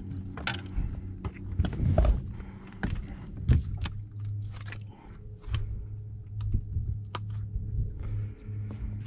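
Irregular knocks, clicks and thumps from a landed largemouth bass being handled on a carpeted boat deck, over a steady low hum.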